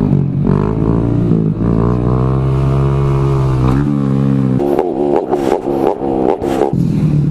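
Honda Grom's small single-cylinder four-stroke engine running under throttle, its pitch climbing and falling as it revs. About four and a half seconds in it turns choppy and uneven, with sharp clicks mixed in.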